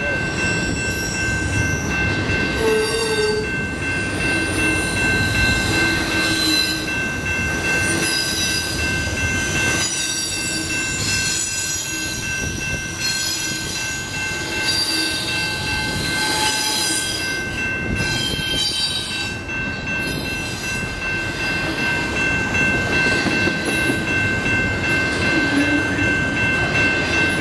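CN double-stack container train's well cars rolling past, with a steady rumble of wheels on rail. Steady high-pitched squealing rides over it, with shorter shrill squeals coming and going: wheel flange squeal on the curve.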